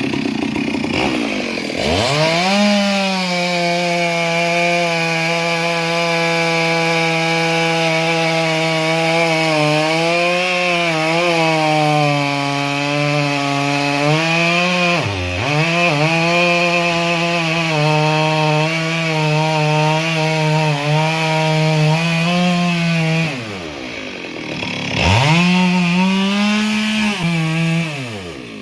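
Chainsaw revving up to full throttle and held through a long cut of about twenty seconds, its pitch sagging a little as the chain bites, with one brief dip about halfway. Near the end it drops back, revs up again for a few seconds and falls off.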